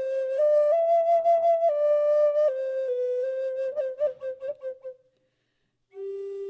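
Solo flute playing a slow melody of held notes, with a few quick ornamental notes about four seconds in. The phrase fades out around five seconds, and after a short silence a new phrase begins near the end.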